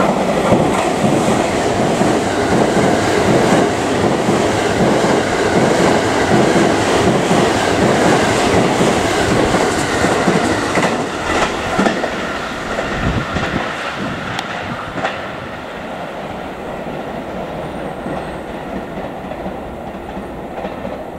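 Thunderbird limited express electric train passing through the station without stopping: a loud rush of wheels and air with clatter over the rail joints. It fades gradually in the second half as the last cars go by.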